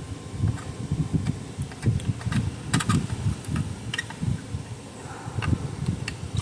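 Workbench handling noise from fitting parts into an electric fence charger: irregular light clicks and taps of small plastic and metal parts, over dull bumps and rubbing.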